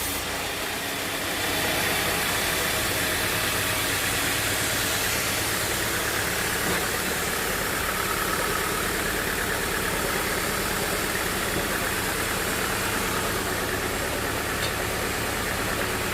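Sawmill running steadily, a constant machine noise with an even hiss over it.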